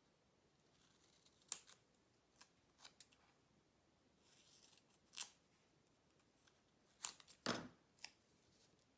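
Faint desk handling sounds of craft materials: a few short sharp clicks and soft rubbing, as double-sided tape and ribbon are handled, with the loudest click about seven and a half seconds in.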